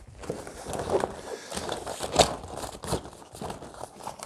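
Rustling and crinkling of the deflated Intex Explorer K2 kayak's vinyl hull as it is folded over and pressed flat by hand, irregular scrapes and crackles, with one louder sharp knock about two seconds in.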